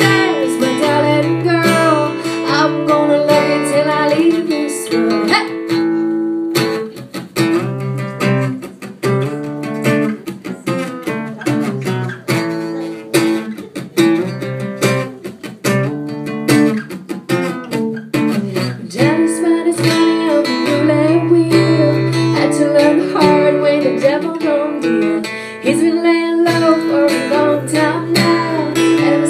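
Live acoustic guitar strumming accompanying a woman singing, with a stretch of guitar alone in the middle.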